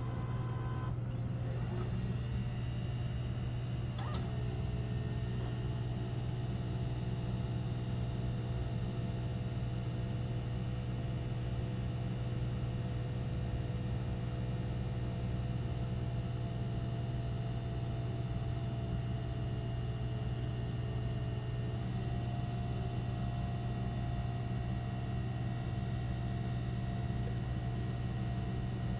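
Eco Auto Smart appliance running with a steady low motor hum and a few whining tones, which shift in pitch a few seconds in and again near the end.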